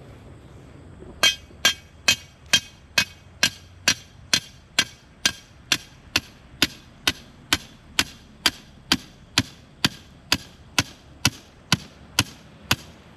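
Steady hammer blows, a little over two a second, starting about a second in. They are driving a driveway marker picket, or a pilot stake for it, into the ground.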